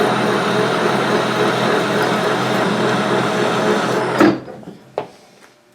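Metal lathe running under power feed with the half nut engaged, taking a spring pass on a screw thread: a steady mechanical whir with gear hum. About four seconds in it stops abruptly with a clunk as the machine is braked, and there is a single click about a second later.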